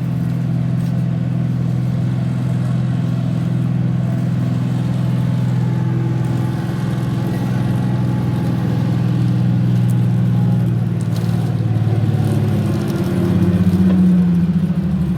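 Kawasaki K12II road roller's diesel engine running steadily, then rising in pitch and getting louder about twelve seconds in as it speeds up.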